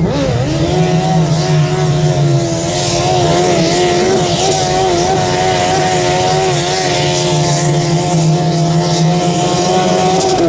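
A garden pulling tractor's engine held at high revs under full load as it drags the weight sled, its pitch wavering slightly. The revs dip briefly right at the start, then climb back, and begin to fall away at the very end.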